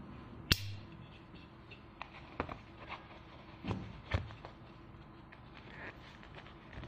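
Handling clicks of a flip-lid USB plasma lighter: one sharp snap about half a second in, then a few softer clicks and knocks as the lighters are set down in and picked up from their boxes.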